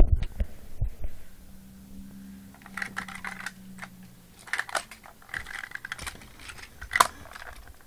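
Plastic Power Rangers Megazord toy being handled: irregular clusters of light clicks and rattles as parts are moved and pushed to lock, with one sharper click about seven seconds in.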